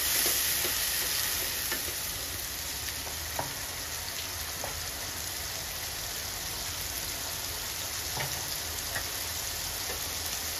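Onion paste with cumin seeds frying in oil in a non-stick kadai: a steady sizzling hiss, stirred with a wooden spatula at the start, with a few faint ticks. The paste is being browned in the oil before the tomato goes in.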